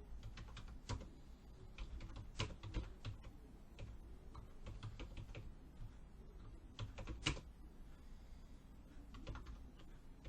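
Typing on a computer keyboard: faint, irregular bursts of key clicks with short pauses between them.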